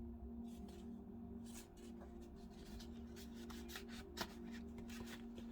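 Paper pieces being handled and slid about on a work surface: soft rustles and light strokes, with a sharper tap about four seconds in, over a steady low hum.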